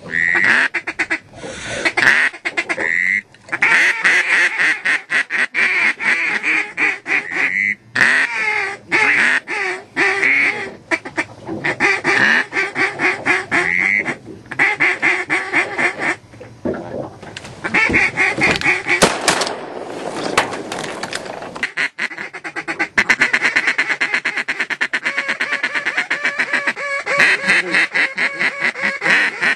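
Loud, rapid mallard-style quacking and fast feeding chatter, running almost without pause and broken by a few short gaps.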